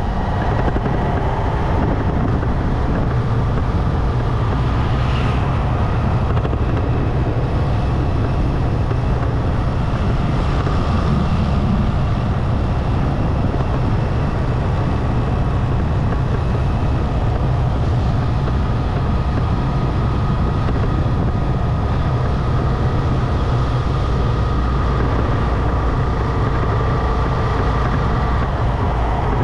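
Motorcycle riding along a road: a steady low rumble of its engine and of wind over the microphone, with a faint wavering whine.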